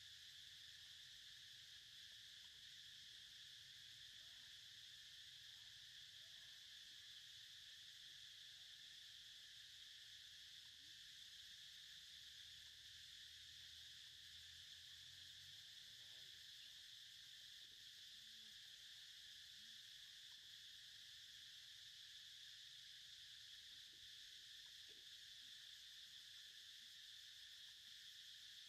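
Near silence, with a faint, steady high-pitched drone of insects that does not change.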